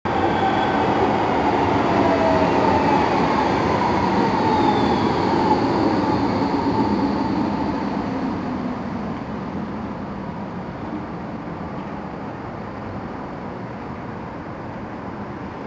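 Electric tram passing close below on street tracks: the running noise of its wheels on the rails, with several whining tones that glide down in pitch over the first half. The sound then fades to a quieter steady rumble.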